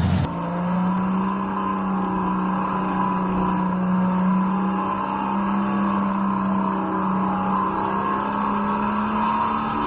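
Go-kart engine running as the kart is driven round the track, holding a fairly steady pitch with small rises and dips.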